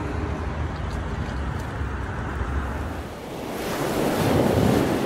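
Wind rumbling on the microphone. About three seconds in it gives way to a louder rush of ocean water and wind.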